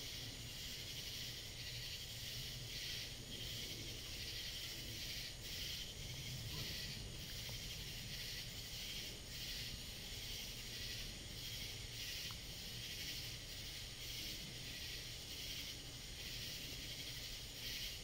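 Chorus of night-singing insects: a steady high-pitched buzzing that pulses in an even rhythm, with a low rumble underneath.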